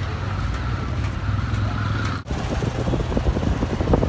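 Street traffic: a steady low engine rumble of passing vehicles. About two seconds in it cuts off abruptly and is replaced by a rough, irregular crackling noise that grows louder.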